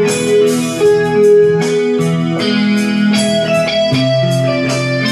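Electronic keyboard playing a slow instrumental tune: sustained chords under a melody line, with a lower bass note coming in about four seconds in.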